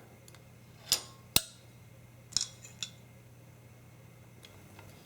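A few sharp clicks and taps from handling a JoJan Multi-Fletcher fletching jig and its clamps, four in the first three seconds, over a faint steady hum.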